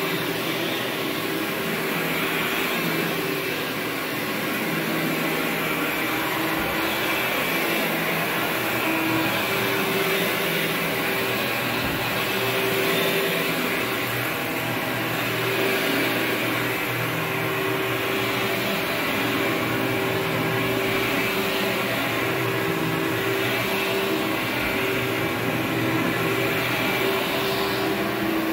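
Upright vacuum cleaner running steadily while it is pushed back and forth over carpet. Its motor hum shifts slightly in pitch every few seconds with the strokes.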